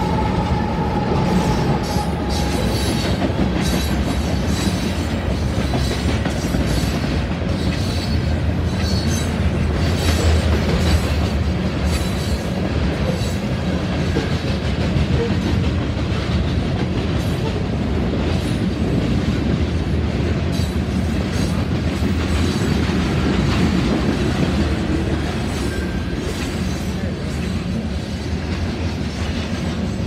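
Freight train of covered grain hopper cars rolling past a grade crossing: a steady rumble with the clack of wheels on the rails. The tail of a locomotive horn dies away in the first couple of seconds.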